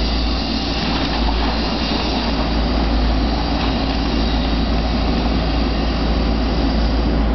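Diesel engine of a Terex Atlas 1305 LC excavator running steadily while its hydraulic arm works a grab down in the water.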